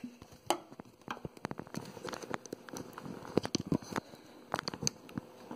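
Hands fumbling close to the microphone: irregular light clicks, taps and rustling, as of plastic parts and the camera being handled.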